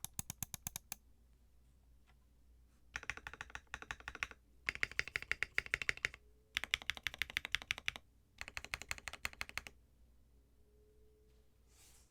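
Typing on a Neo65 aluminium mechanical keyboard in its O-ring mount, fitted with KTT Halu Halo v2 switches and XDA-profile keycaps: fast runs of keystrokes in five bursts with short pauses between, stopping about ten seconds in.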